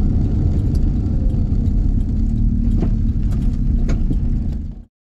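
Cab interior of a VW T25/T3 camper van with a TDI turbo-diesel conversion, cruising on the open road: a steady low engine drone mixed with road and tyre noise, with a few light clicks and rattles. It fades out just before the end.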